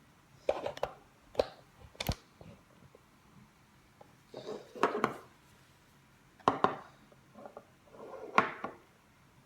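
Hands handling a small plastic laser projection keyboard on a hard surface: a few sharp clicks and knocks in the first two seconds, then scattered knocks and brief rustles.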